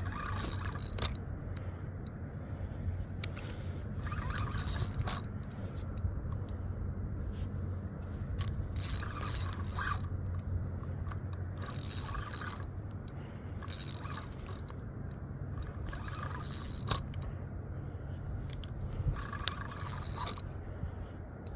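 Fishing reel being cranked in short spells while fighting a hooked catfish, a scratchy mechanical whirring that comes and goes about every two seconds, over a steady low hum.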